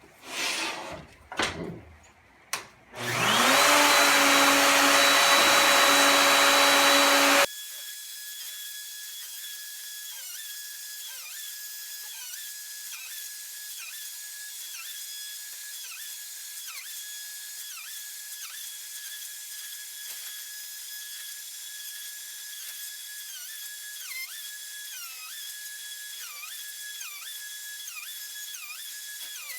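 DeWalt router with a spoilboard surfacing bit starting up and spinning up to a steady high whine, then running through the end. Its pitch sags briefly again and again, about once a second, as the cutter bites into the maple slab during a flattening pass. About seven seconds in, the sound turns abruptly thinner and quieter.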